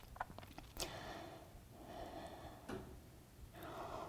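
Faint, slow, deep breathing through the nose while holding a yoga pose: three long breaths, each a soft rush about a second long, with a couple of tiny clicks.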